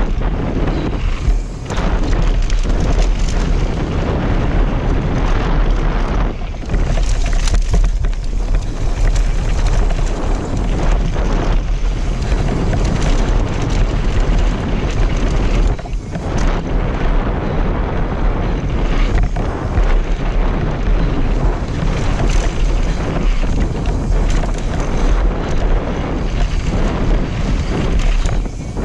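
Wind buffeting the mountain bike's action-camera microphone as a loud, steady low rumble, mixed with the rush of tyres on loose gravel during a fast downhill ride; it dips briefly a few times.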